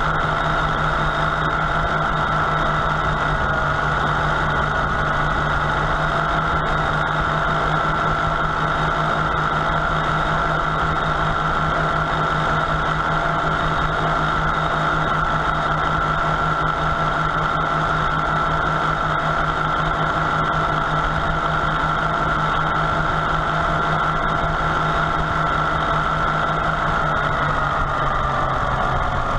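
Farmall H tractor's four-cylinder engine running steadily on its freshly reinstalled carburetor, then slowing noticeably near the end.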